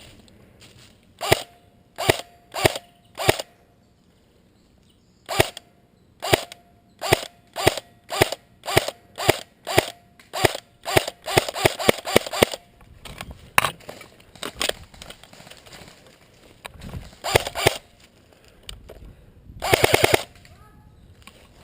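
Airsoft electric rifle firing. It fires a few single shots, then a quickening string of shots that runs into a short full-auto burst, and near the end it fires another full-auto burst.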